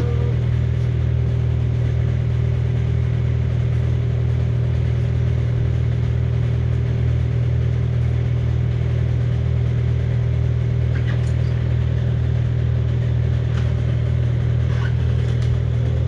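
Engine idling steadily at one unchanging low pitch, heard from inside the machine's cab.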